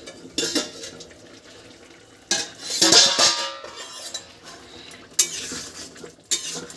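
Metal utensils clinking and scraping against a cooking pot as a curry is checked and stirred, with a louder stretch of clatter about two and a half seconds in and sharp clinks near the end.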